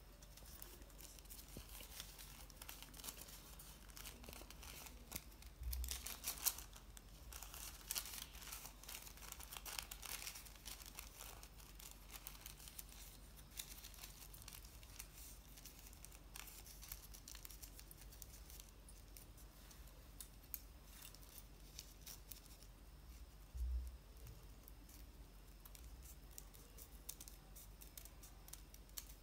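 Faint crinkling and rustling of thin kite paper being folded and handled, with small scissors snipping it near the end. Two soft low thumps come about 6 s and 24 s in.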